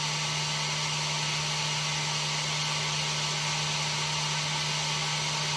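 Electric heat gun running on its high setting, powered from a battery bank through an inverter: a steady blowing hiss over a constant low hum.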